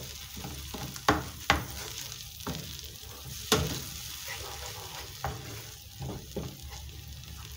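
Wooden spoon stirring a thick tomato curry base in a frying pan, with several sharp knocks and scrapes against the pan over a low steady sizzle.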